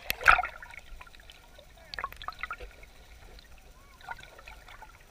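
Water trickling and dripping, with a small splash just after the start and scattered light splashes after it.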